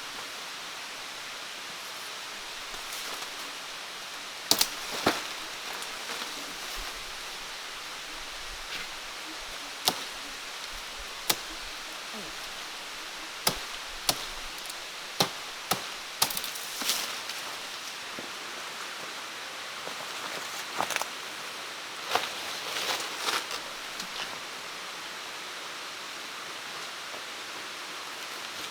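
Wood being chopped with a blade: about a dozen sharp, irregularly spaced strikes, some in quick pairs, over a steady background hiss.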